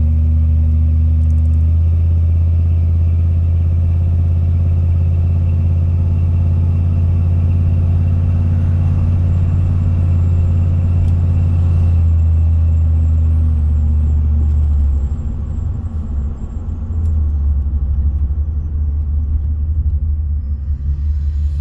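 Dodge pickup truck driving, heard from inside the cab: a steady low engine and road drone. About fifteen seconds in it dips and wavers briefly, then settles back to a steady drone. The truck is running on a freshly rebuilt 46RE automatic transmission with a new torque converter.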